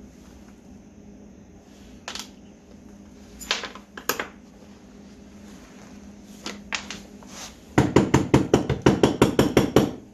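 Hand tools and small carburetor parts clicking on a workbench, then a fast run of sharp knocks near the end, about eight a second for two seconds, like a part being tapped against the bench. A low steady hum sits underneath.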